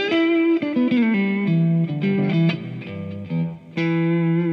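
Electric guitar played through a Kemper profiler into the Kemper Kabinet speaker, with its bass booster on: a phrase of picked notes sliding downward into held low notes, then a new chord struck near the end and left ringing.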